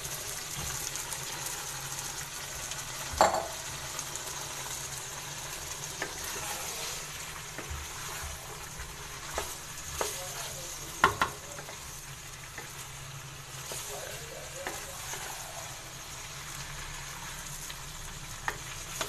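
Chicken, potato and green bell pepper curry sizzling steadily in a frying pan while a spatula stirs it, with a few sharp scrapes and knocks against the pan, the loudest a little after 3 s and about 11 s in.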